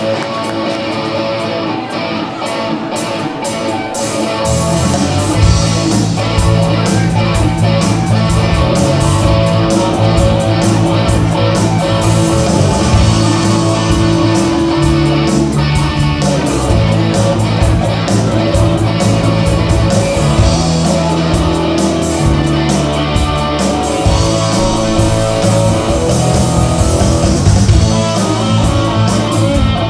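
Live rock and roll band heard from among the audience: an electric guitar plays alone at first, then bass and drums come in about four seconds in and the full band plays on with a steady beat.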